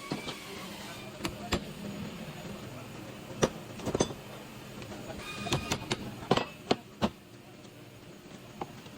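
Scattered sharp metallic knocks and clanks of tools and parts being handled during axle work, about ten in all, bunched together near the middle and again a little later, over a low steady hum.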